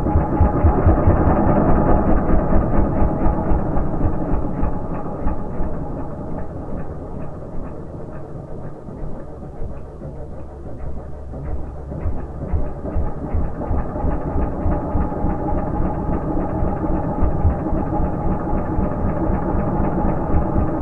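Slowed-down recording of a two-stroke dirt bike engine being revved beside the microphone. Its individual firing pulses come through as a string of separate thumps, growing stronger as the throttle opens and then coming faster as the engine speeds up.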